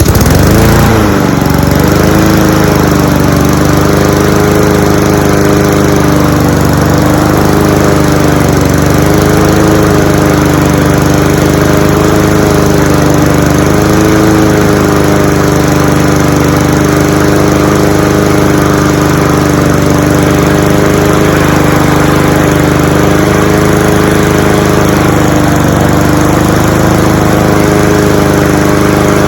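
Cub Cadet SC-700H lawn mower's Honda GCV190 single-cylinder engine catching on one pull, its pitch rising over the first second, then running steadily at speed with a slight waver.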